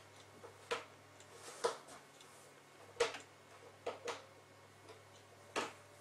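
A cat pawing and treading at a toy on a flat cushion, making short, irregular clicks and scuffs, about six of them.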